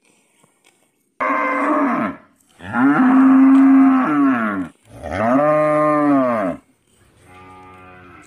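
A cow mooing: four long calls one after another, the third rising and then falling in pitch, the last one quieter.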